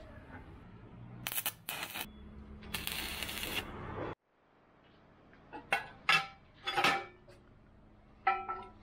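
Steel lid, hinge and fittings of a homemade gas-pipe smoker clanking and clinking as they are handled, the knocks ringing briefly. About three seconds in there is a short hissing burst that cuts off suddenly.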